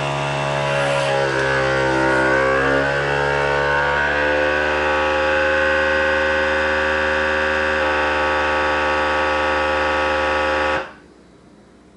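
Bonsenkitchen automatic vacuum sealer's pump running as it draws the air out of a bag of steak. Its hum drops in pitch over the first few seconds, then holds steady, and it cuts off suddenly about a second before the end.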